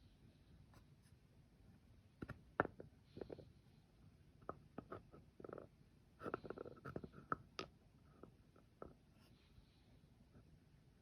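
Metal hand-grinder burrs being handled and set down: a series of light clicks and knocks between about two and nine seconds in.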